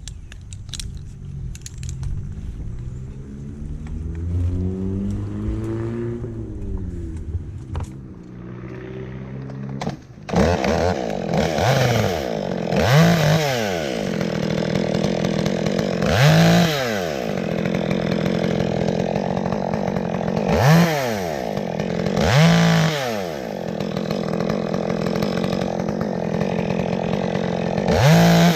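Gas chainsaw running, quieter at first with its pitch slowly rising and falling. About ten seconds in it goes to full throttle and cuts, the pitch dipping and climbing back every few seconds as the chain loads up in the wood.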